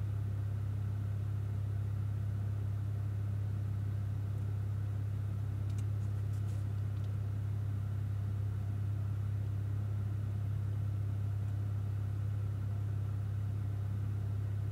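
Cadillac ATS-V's twin-turbo V6 idling steadily with the car at a standstill, heard from inside the cabin as an even low hum.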